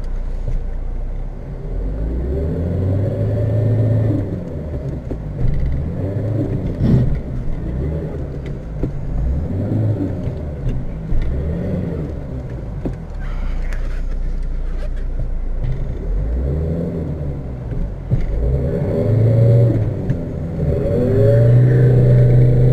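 Fiat Tipo 1.9 TD's four-cylinder turbodiesel engine revving up and dropping back again and again, with a long, loud surge near the end, as the car is worked free of being stuck in snow.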